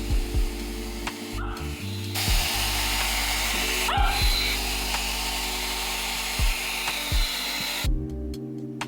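One-step hot air brush hair dryer running, its motor and hot airflow giving a steady hiss that cuts out briefly twice and stops near the end. Background music with deep bass beats plays underneath.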